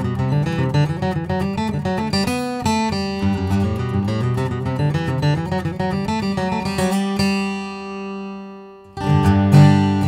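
Taylor Grand Auditorium 12-fret acoustic guitar with a sinker redwood top and Macassar ebony back and sides, played fingerstyle with a run of picked notes. About seven seconds in a chord is left to ring and fade, then playing starts again with a firmer stroke near the end.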